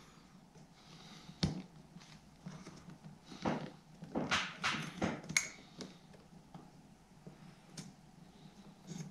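Scattered small clicks and taps of the plastic parts of a Revox B77 tape recorder's toggle switch being fitted together by hand while its spring is tensioned: a single click early, several close together around the middle, and one more near the end.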